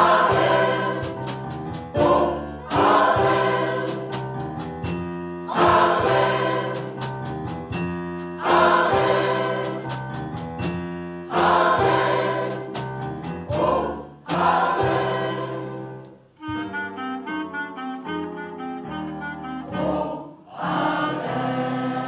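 Mixed choir singing in full harmony to a drum kit, phrase after phrase, each opening loud and fading, about every three seconds. Past the halfway mark it gives way to a quieter passage of short, quick notes, and the full sound comes back in near the end.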